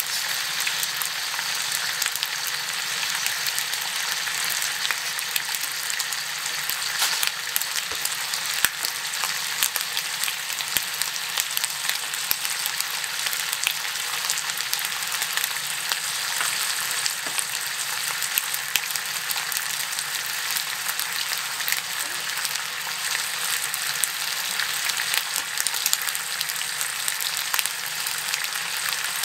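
Bacon strips frying in a Lodge cast-iron skillet: a steady sizzle with a constant scatter of small pops and crackles.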